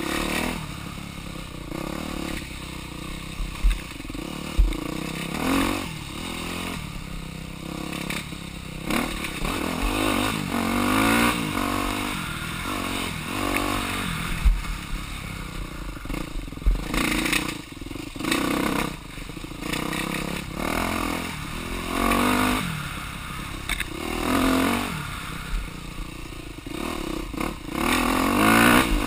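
Dirt bike engine revving up and easing off again and again under the rider's throttle, with scattered clattering knocks from the bike jolting over the rough trail.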